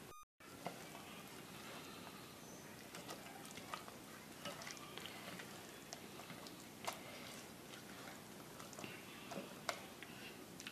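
Faint wet squelching of gram-flour batter being mixed by hand in a stainless steel bowl, with scattered soft clicks.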